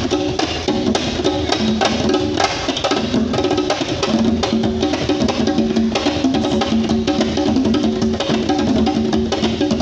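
Hand-drum ensemble playing together in a steady, dense rhythm: two djembes and a pair of tall wooden conga-style drums struck with bare hands.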